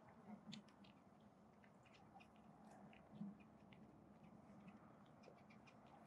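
Western bluebirds and an American robin calling: faint, scattered short high chips and call notes in quick succession. A faint low hum runs underneath, with a soft low bump about three seconds in.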